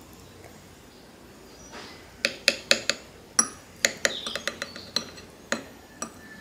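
Metal fork and knife clinking against a ceramic plate while cutting food. It starts about two seconds in: a run of a dozen or so sharp, ringing clinks, some coming in quick succession.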